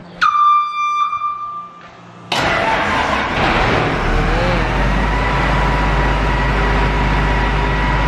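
Case IH combine's warning horn sounds for about two seconds. Then its diesel engine starts and runs steadily.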